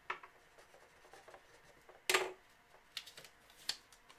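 Trading cards being handled at a table: a few soft clicks and taps, with one short slide or scrape about two seconds in and two sharper ticks near the end.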